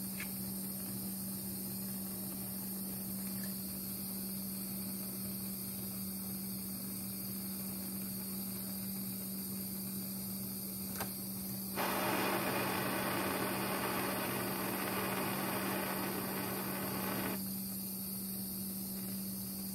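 Propane hand torch burning with a steady hiss over a steady hum. About twelve seconds in, a louder rough rushing noise starts and lasts about five seconds.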